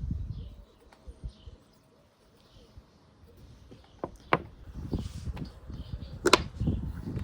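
Hand-work on small engine parts: scattered handling noise and a few sharp clicks or knocks, the loudest about four and about six seconds in.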